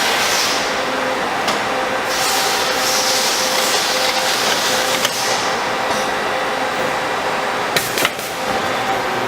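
CNC tube bending machine at work: a steady mechanical hum with hissing surges every couple of seconds and a few sharp clicks near the end.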